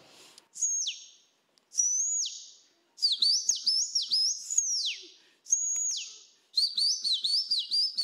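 A man imitating a bird by whistling into a microphone: the call of the yellow-and-black marsh bird he names the soldier blackbird (pássaro-preto-soldado). Two long high notes that each drop sharply in pitch at the end, then quick runs of short swooping whistles, a few every second.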